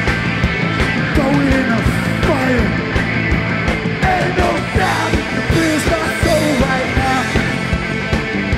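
Hardcore punk band playing live at full volume: distorted guitars, bass and pounding drums, with shouted vocals over the top.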